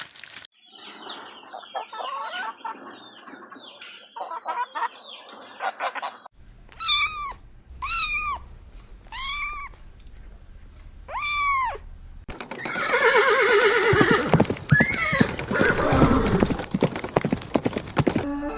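Farm animal calls in sequence. First comes a dense chatter of many small calls. About six seconds in, four separate short calls follow, each rising and falling in pitch. Near the middle a louder, rough, noisy call begins and runs until just before the end.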